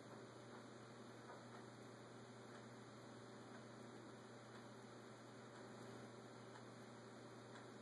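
Near silence: a faint steady electrical hum over low background hiss.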